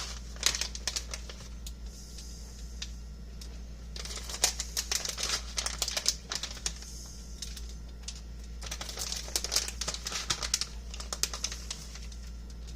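Bacon bits being shaken out of their container onto potatoes: rapid pattering and ticking in three bursts.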